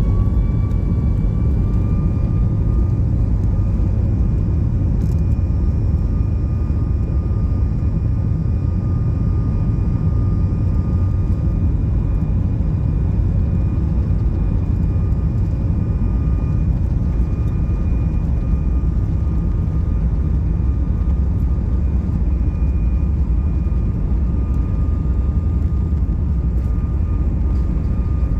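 A Boeing 737 MAX 9's CFM LEAP-1B turbofan engines heard from inside the cabin, spooling up to takeoff thrust. Their whine rises over the first couple of seconds, then holds steady over a loud, continuous rumble.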